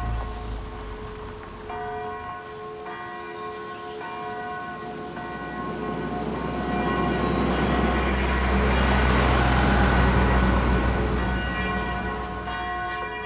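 Church bells tolling, the ringing tones restruck about once a second. A broad rush of noise swells up through the middle and dies away near the end.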